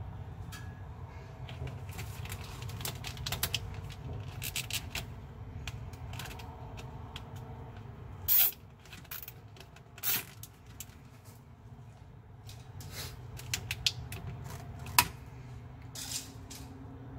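Hands working among cables and fittings in a battery compartment: scattered clicks, rustles and scrapes over a low steady hum, with two short, louder rasps about eight and ten seconds in.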